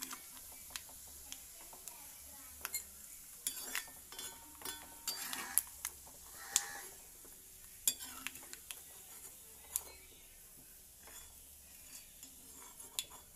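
Metal ladle scraping and clinking against an iron kadai and a steel bowl while scooping out coconut pieces fried golden in ghee, in scattered irregular knocks, a few ringing briefly, over a faint sizzle of the hot ghee.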